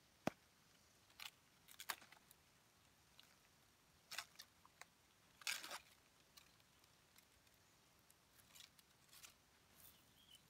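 Scattered small clicks and short scrapes as bamboo strips are cut with a knife on a wooden block and handled as sticks. A sharp click comes just after the start, and the longest scrapes fall a little past the middle.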